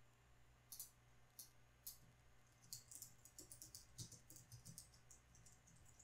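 Faint keystrokes on a computer keyboard, irregular clicks as a short phrase is typed: a few scattered at first, then a quicker run about halfway through.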